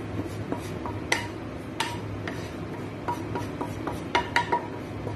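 Wooden spatula scraping sauce out of a pan and tapping against the pan and a ceramic baking dish: a string of light clicks and knocks, with sharper ones about a second in and near two seconds, and a quick cluster of three near the end. A steady low hum runs underneath.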